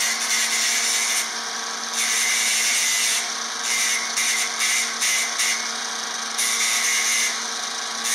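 Small power grinder running steadily against the cast aluminium frame, grinding out dirt and grease before welding; its high whine gets louder and quieter in turns as it bites and eases off.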